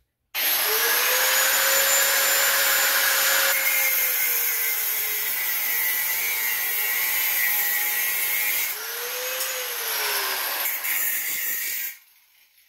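Angle grinder cutting through a zinc-coated bolt, throwing sparks. It starts abruptly, and its motor whine sags in pitch under load and picks back up twice before it cuts off suddenly near the end.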